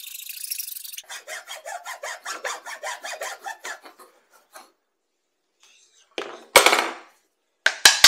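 Hacksaw cutting by hand through a thin threshold strip: a rasping hiss, then quick, even back-and-forth strokes that stop after about four seconds. Near the end come two loud clatters as the saw and the strip are put down.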